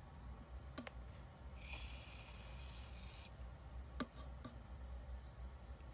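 Aerosol can of shaving foam spraying, a steady hiss lasting about a second and a half, with a few faint sharp clicks before and after it.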